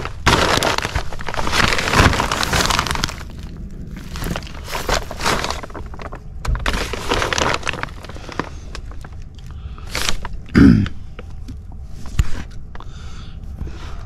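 Plastic sheeting and foil-jacketed flex duct crinkling and rustling in several bursts as someone crawls and moves over dirt, with scattered small knocks. A short low thump, the loudest sound, comes about ten and a half seconds in.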